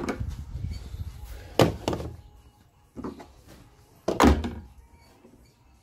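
Hollow thuds and knocks on the lid of a plastic waste water tank as parts are handled and set down on it: a few separate knocks, the loudest about four seconds in.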